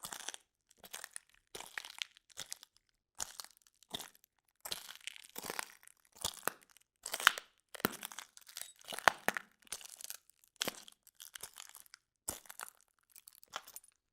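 Footsteps crunching over broken glass, about one step every three-quarters of a second. Each step is a short cluster of sharp, crackling crunches, with silence between steps.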